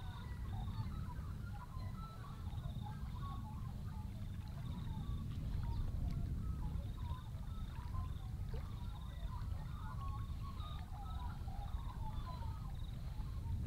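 Low rumble of wind buffeting the microphone, with birds chirping and calling throughout and a repeated high trill.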